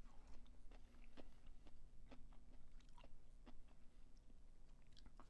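A person chewing food, with faint, scattered crunchy clicks.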